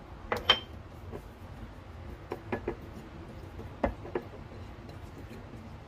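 Light clinks and knocks of kitchen dishes and containers being handled and set down, about seven in all. The loudest comes about half a second in with a short ring, and the others fall in small clusters over the next few seconds.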